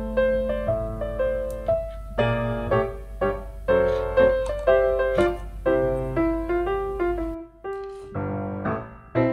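Background piano music: a gentle melody of single struck notes over soft chords.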